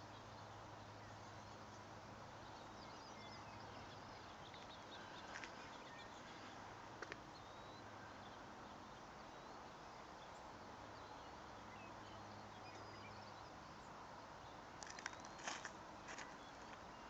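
Near silence: faint steady outdoor background with a low hum and a few soft clicks, several of them bunched together near the end.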